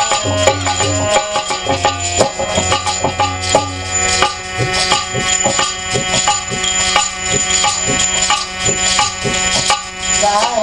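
Instrumental interlude of a devotional bhajan: tabla playing a quick, busy rhythm, with deep bass-drum strokes in the first half, over steady held accompanying notes.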